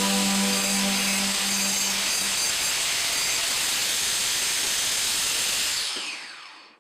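Steady hissing rush of a workshop tool at work on an old bench vise, with a low hum under it for the first two seconds; the sound fades out near the end.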